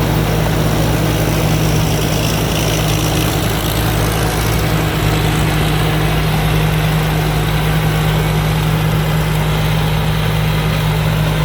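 A rice combine harvester's J08C diesel engine running steadily while harvesting, an even, unbroken low hum.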